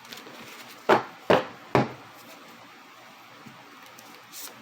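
Three sharp knocks on a wooden surface about a second in, roughly half a second apart, from a tarot deck handled against a table, with a brief high swish near the end.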